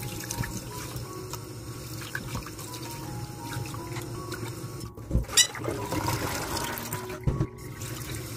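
Kitchen tap running into a stainless steel bowl of raw chicken pieces, water splashing as hands rub and rinse the chicken. A few sharp knocks come a little after halfway.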